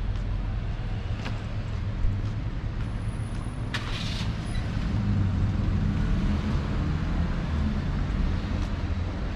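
Road traffic: a motor vehicle's engine running close by, its low rumble strengthening about five seconds in, with a short hiss of air about four seconds in.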